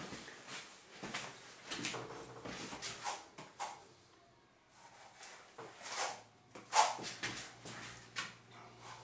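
A 10-inch texturing comb being drawn through thick, wet artex texture on a wall: a series of short scraping swishes. There is a brief pause about four seconds in, and the loudest stroke comes near seven seconds.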